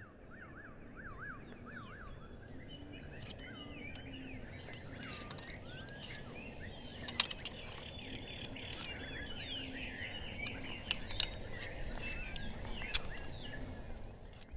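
Several birds chirping and trilling, with a wavering warble at the start, over a steady low background rumble; a single sharp click about seven seconds in.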